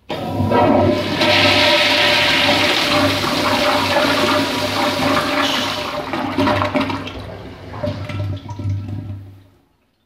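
Vintage 1970s Kohler floor-mount toilet flushing: water gushes in suddenly and loudly, swirls down the bowl, then tails off and stops about nine and a half seconds in.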